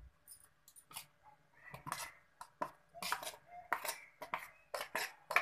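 Stainless-steel mixer jar being scraped and knocked as thick batter is emptied from it into a glass bowl: a string of irregular clinks and scrapes, the loudest near the end.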